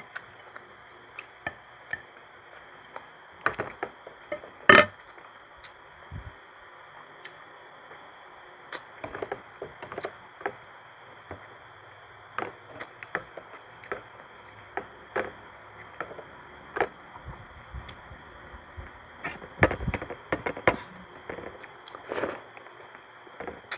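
Close-up eating sounds as two people eat squid adobo and rice by hand: scattered wet smacks and chewing, with occasional knocks of a spoon or hands on plates. The sharpest knock comes about five seconds in, and a cluster follows near the end.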